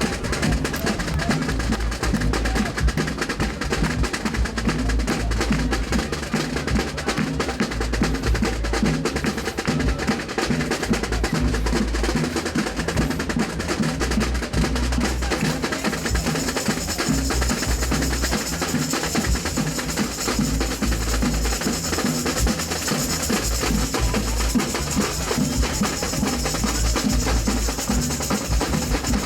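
Samba percussion band playing a fast, steady batucada groove, with deep bass drum pulses under dense snare and wood-block-like strikes. About halfway through, a bright, hissing high layer joins in.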